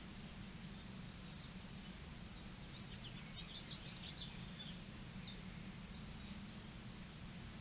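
Small birds chirping: a quick run of short, high chirps about three seconds in, then a few single chirps, over a steady low hum and hiss.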